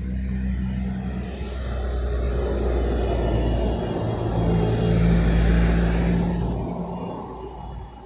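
A motor vehicle's engine rumbling as it drives past, swelling to its loudest about five seconds in and then fading away.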